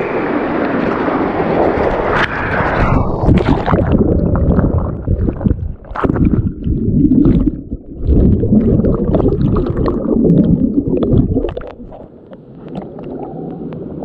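Water rushing down a natural rock water slide. About three seconds in, the sound turns suddenly muffled, leaving heavy low gurgling and churning as the microphone plunges underwater into the pool below.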